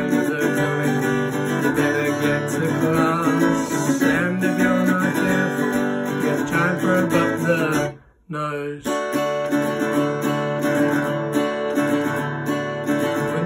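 Acoustic guitar strummed in chords as song accompaniment, cutting out suddenly for about half a second around eight seconds in before carrying on.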